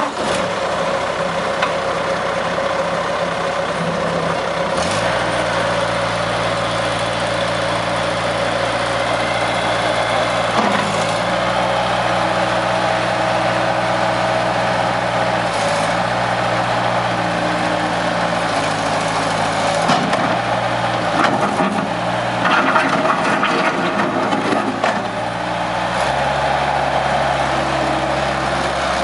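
Skid steer loader engine running steadily, its speed stepping up and down several times, with a few sharp knocks along the way.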